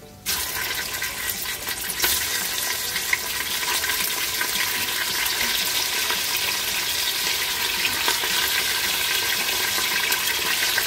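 Raw lamb pieces going into hot mustard oil in a pressure cooker pot and sizzling. The sizzle starts suddenly about a third of a second in, grows louder about two seconds in as more pieces go in, then carries on steadily.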